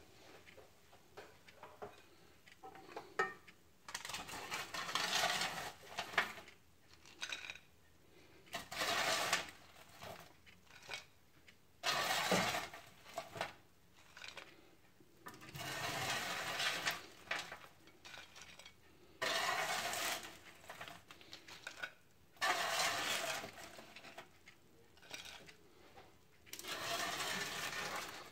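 A spatula scraping oven-baked French fries off a paper-lined baking tray and onto a plate, in about seven scraping strokes of a second or two each, with a few short clinks of utensils against the plate.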